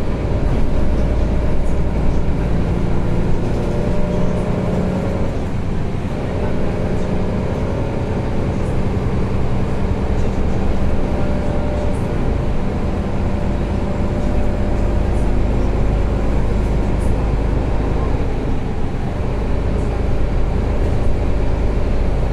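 Mercedes-Benz O530 Citaro facelift city bus heard from inside the passenger cabin while driving: a steady low engine and drivetrain rumble with tyre noise. The engine note shifts a few times, about six, twelve and nineteen seconds in, as the bus changes speed.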